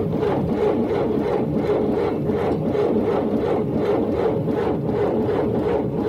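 Car engine being cranked by its starter motor without catching, the cranking going in an even beat of about four compression pulses a second over the starter's whir: the sluggish cranking of a weak, failing battery.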